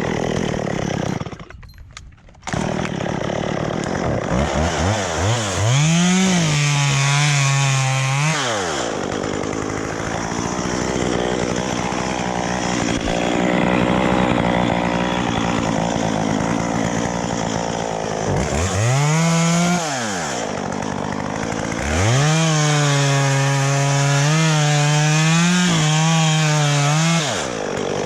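Two-stroke chainsaw cutting eucalyptus wood. Its engine revs up and holds at full throttle three times, falling back between runs to a rougher, lower sound under load.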